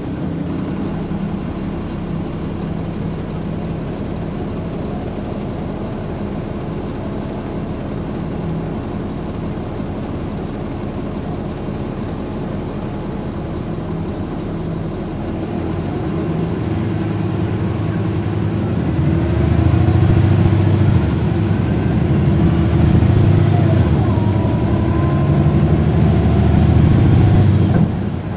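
Caterpillar C13 ACERT diesel engine of a 2009 NABI 416.15 transit bus running evenly, then pulling harder and louder from about halfway through, with a whine that climbs in pitch. The sound drops off suddenly at the end.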